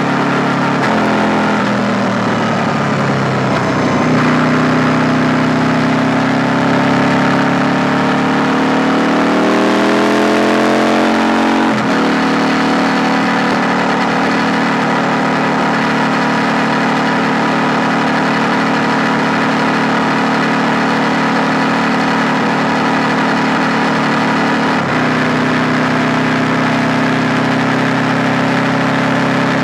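KTM 890 Duke R's parallel-twin engine: the revs drop for a few seconds, then climb steadily under acceleration to an upshift about twelve seconds in, after which the engine holds steady cruising revs, with a small change in the note near the end.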